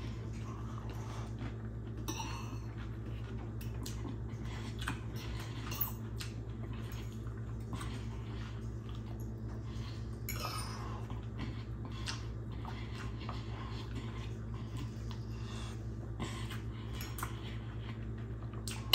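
Metal fork clicking and scraping against a ceramic dinner plate while eating, with a few wetter chewing and mouth sounds between the clicks. A steady low hum runs underneath; the sharpest click comes about six seconds in.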